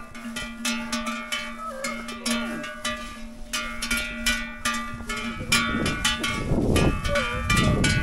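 Bell-like strikes ringing in a quick, steady rhythm, about three to four a second, over a steady low tone. A low rumbling noise comes in about five and a half seconds in.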